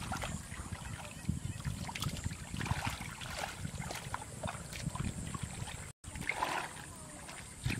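Hands and wading feet sloshing and splashing through shallow muddy water, with small irregular splashes. The sound drops out for an instant about six seconds in.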